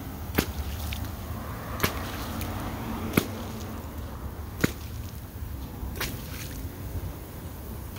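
Lawn sprinkler spraying, with five sharp splashing hits about one every second and a half as the water jet comes round, over a steady hiss of spray.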